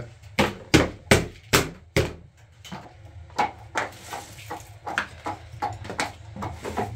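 A series of sharp knocks, five heavy blows in the first two seconds at about two to three a second, then lighter, uneven knocks.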